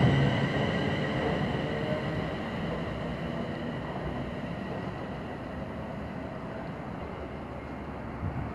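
Passenger train running away along the platform, its wheel-and-rail rumble fading steadily, with a faint high whine that dies away in the first few seconds.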